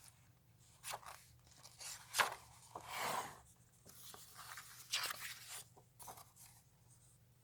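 A comic book being handled: faint, irregular paper rustling and crinkling in short bursts, with a few sharper crinkles, as it is unpacked and its pages are turned.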